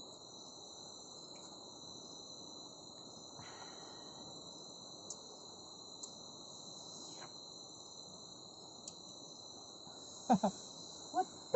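Night insect chorus: crickets trilling steadily in two high pitches over a faint low hiss. Near the end a man gives a brief laugh.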